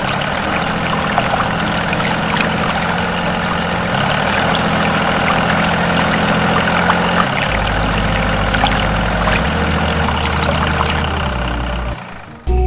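Small motor running steadily while water pours and splashes, the hum shifting in pitch a few times before it cuts off near the end.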